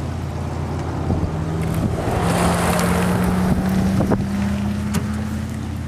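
Wind rushing over the microphone on top of a steady low vehicle engine hum, with a drone that rises slightly in pitch. The rush swells louder about two seconds in and eases near the end, with a few sharp clicks.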